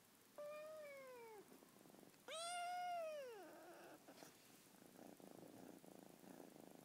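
A lilac British Shorthair kitten meowing twice, a short call that falls in pitch and then a louder, longer one that rises and falls, over soft purring. The meows are the kitten demanding to be petted.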